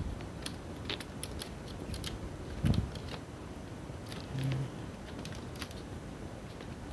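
Scattered small clicks and scratches of fingers working at the CMOS coin battery, its wire and the plastic parts inside an opened laptop, with one dull knock a little under three seconds in.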